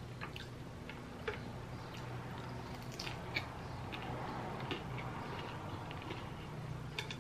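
Close-miked chewing of a pan-fried dumpling: soft, irregular wet mouth clicks and smacks.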